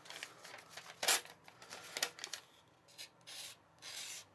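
M390 steel knife blade with a fine CBN-stone finish slicing through hand-held newspaper: a few short scratchy cutting and rustling strokes, the sharpest about a second in. The edge catches and tears the paper in places instead of slicing cleanly.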